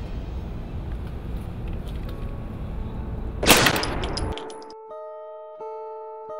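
A low rumbling background, then, about three and a half seconds in, a single loud gunshot that rings briefly before the sound cuts away. Near the end, slow plucked guitar notes begin.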